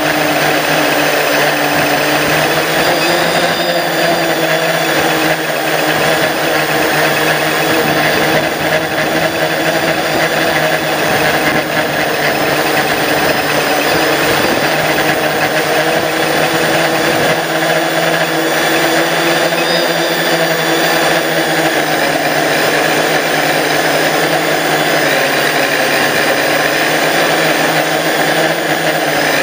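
A drone's motors and propellers running in flight, heard up close from its own onboard camera: a steady buzzing hum whose pitch wavers slightly up and down as the throttle changes.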